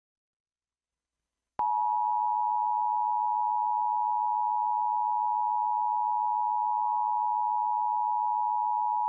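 Emergency Alert System two-tone attention signal (853 Hz and 960 Hz sounded together): a loud, steady tone that starts about one and a half seconds in, after silence. It announces a statewide Required Monthly Test of the alert system.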